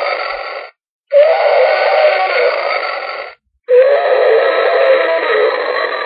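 Dinosaur roar sound effect, repeated: one roar fades and cuts off under a second in, a second roar runs from about one to three and a half seconds, and a third starts just before four seconds. Each roar begins at its loudest and dies away before stopping abruptly, with a brief silence between.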